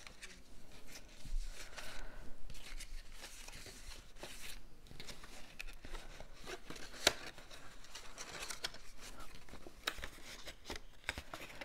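Cardstock rustling, scraping and creasing as a folded twist-and-pop paper card is worked open and closed by hand, with small taps and one sharper click about seven seconds in.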